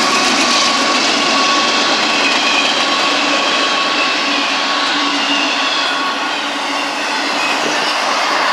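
CSX intermodal freight train of container and trailer flatcars passing close by: the steady rushing noise of steel wheels on rail, with thin high-pitched tones coming and going over it.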